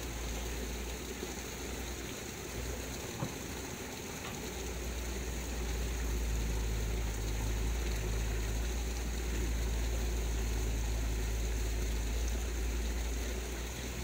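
Steady rush of a muddy stream flowing past rocks, over a low rumble that weakens from about two to four seconds in. A single small click about three seconds in.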